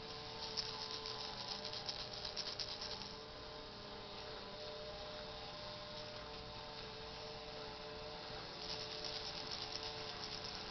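Plastic baby rattle shaken, giving a rapid rattling for about the first three seconds and again near the end, over a steady background hum.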